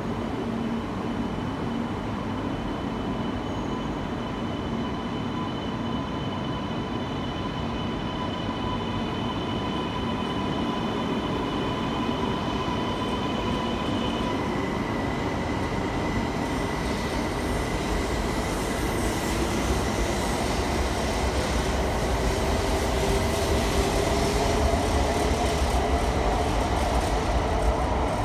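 E2 series Shinkansen pulling out and accelerating: its electric traction drive whines in several steady tones. About halfway through these change to a rising whine, and the low rumble of the running gear builds and grows louder toward the end.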